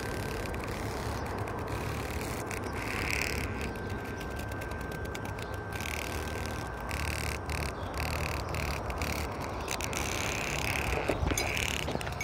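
Cicada held between the fingers, giving a buzzing rattle that swells and fades several times over a steady noise.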